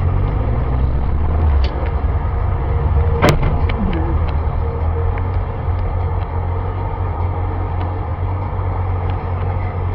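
Steady low rumble of a car's engine and road noise heard from inside the cabin on a dashcam, with one sharp click about three seconds in.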